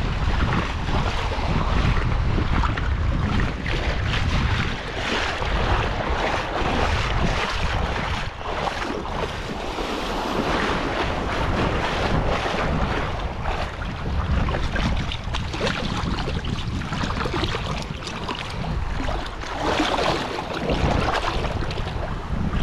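Wind noise on the microphone over small surf waves washing up a sandy beach.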